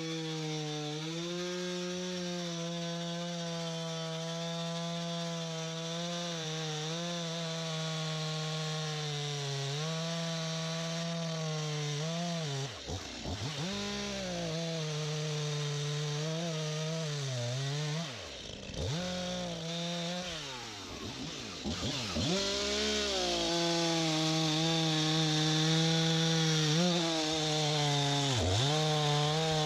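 STIHL MS251C two-stroke chainsaw running at high revs, most likely cutting wood. Its pitch wavers under load and drops sharply, then climbs back, about four times as the throttle is let off and opened again.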